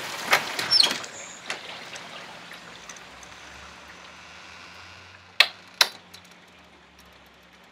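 Heavy rain falling steadily on a wooden deck, heard through an open door. A few sharp knocks come in the first second and a half, and two sharp clicks come close together about five and a half seconds in.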